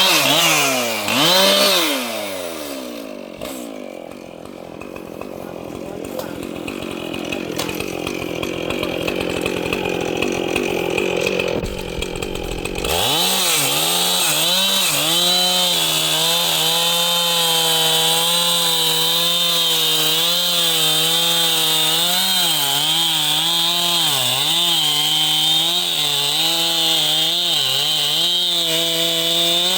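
Large professional chainsaw revved in a couple of quick bursts, then running less clearly for about ten seconds. About halfway through it holds at steady high revs with small dips in pitch, as when the chain is pulled through wood in a long cut.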